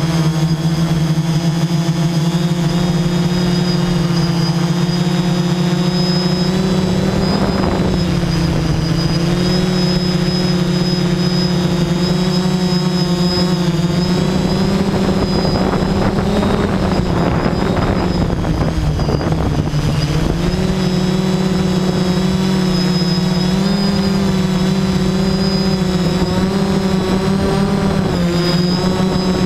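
Motors and propellers of a small remote-controlled camera aircraft running, heard up close from its onboard camera: a steady hum whose pitch dips and rises several times with throttle changes. Wind rushes over the microphone briefly about a quarter of the way in and again for several seconds around the middle.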